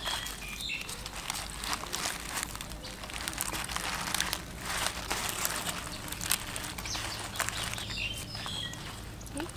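A bamboo stick scraping the flesh off a fish against a bamboo board, in repeated short scraping strokes. Birds chirp briefly near the start and again near the end.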